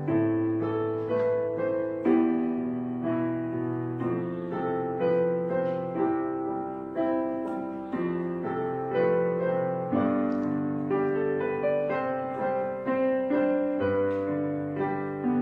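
Background piano music: notes struck and left to fade, a new one about every half second to a second.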